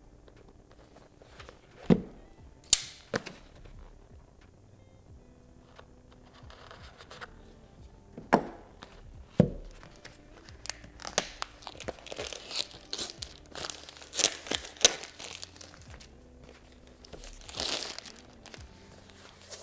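Unboxing of an action camera: several sharp knocks and taps as the box and its parts are handled and set down, then stretches of tearing and crinkling packaging, loudest near the end. Faint music plays underneath.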